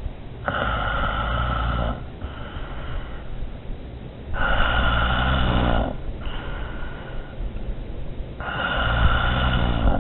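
Heavy snoring: three loud snores about four seconds apart, each followed by a shorter, softer breath out.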